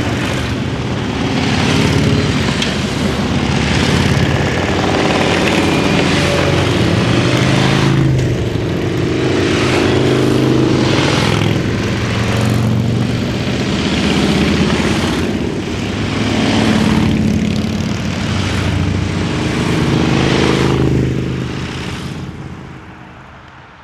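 A procession of cruiser and touring motorcycles riding past one after another. Each engine swells and falls away as it goes by, about every two seconds. The sound fades out over the last couple of seconds.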